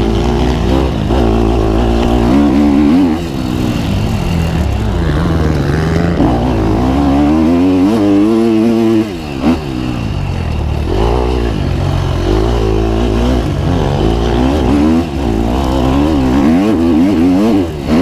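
Dirt bike engine being ridden hard, its pitch repeatedly rising and falling as the throttle is opened and closed, with a brief drop off the throttle about nine seconds in.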